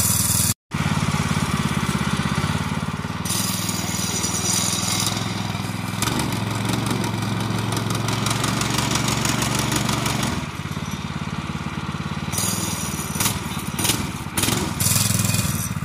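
Predator 212 single-cylinder gas engine running steadily, turning the boat's inboard propeller shaft through its bearings and U-joint. The sound drops out for an instant about half a second in, and the engine's note shifts partway through.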